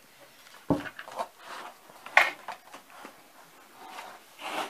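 A small wooden baseboard being handled and turned over on a table: a dull thump a little under a second in, a sharper knock just past two seconds (the loudest), and rubbing and scraping between.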